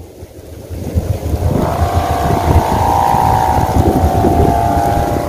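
Ribbon hummer on a Madura-style gapangan kite droning in strong wind: a steady buzzing tone that swells in about a second and a half in and holds. Wind rumbles on the microphone underneath.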